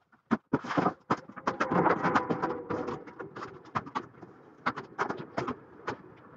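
Large cardboard box being opened and unpacked by hand: cardboard flaps and packing material rustling and scraping, with many sharp clicks and taps, busiest in the first three seconds and lighter later.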